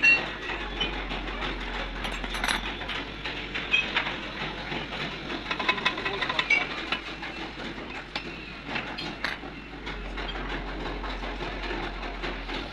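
Scattered metal clinks and knocks from handling a truck cab motor's steel housing and setting it in a steel bench vise, over steady workshop background noise. The knocks cluster in the middle of the stretch.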